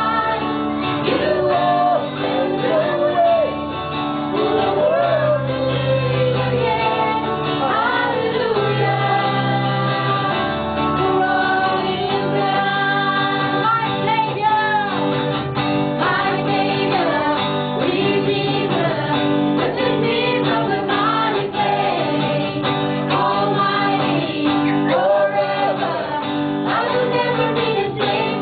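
Live praise-and-worship song: a woman singing lead into a microphone, with a second singer and electric guitar accompanying.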